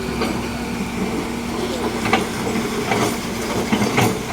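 Heavy vehicle engines running steadily, with several sharp clanks about two, three and four seconds in.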